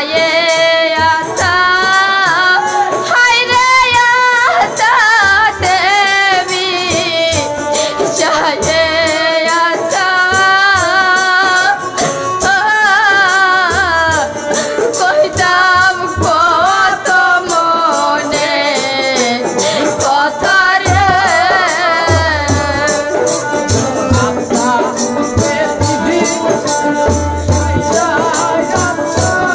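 Woman singing a Bengali bichchhed folk song with a wavering vibrato, over a dhol drum and a steady rattling percussion beat. The singing drops away about three-quarters of the way through while the drum and rattle carry on.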